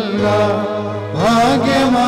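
Voices chanting a slow liturgical hymn in unison, holding long notes, with a rising slide up to a new note a little past halfway; a steady low hum sits underneath.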